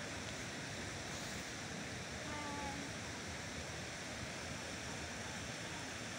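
Steady outdoor background noise, an even hiss, with a faint short tonal sound about two and a half seconds in.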